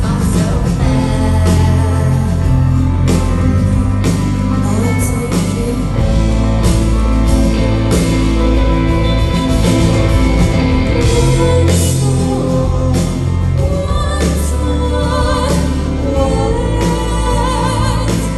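Live rock band playing at full volume: electric guitars, bass, drums and keyboard, with a woman singing over them.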